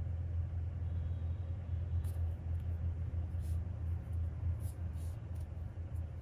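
A steady low hum of room background noise, with a few faint scratchy ticks of a crochet hook and yarn being worked by hand.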